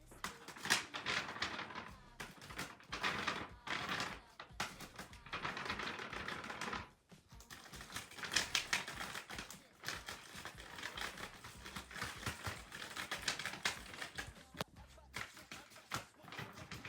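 Folded paper rustling and clicking in quick bursts, as a paper dragon puppet is worked, with a short pause about seven seconds in.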